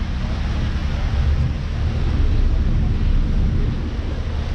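Steady low rumble of tour boat engines at the wharf, mixed with wind buffeting the microphone.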